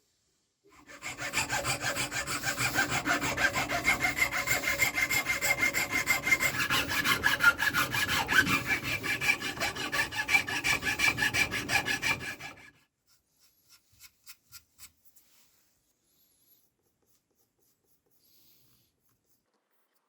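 Rapid, rhythmic back-and-forth rasping strokes of a hand file or saw working the knife's handle. They run for about twelve seconds and stop abruptly, followed by a few faint ticks.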